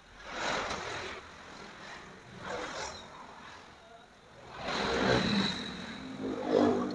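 Sandpaper rubbing on a metal sewing-machine presser foot in three bouts of scratchy strokes, the last one longer and with a thin squeak. The foot is being smoothed because a rough foot can make the thread break.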